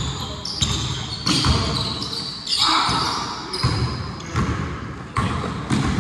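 A basketball bouncing on a hard court, about eight irregular thuds, with sneakers squeaking as players move in a pickup game.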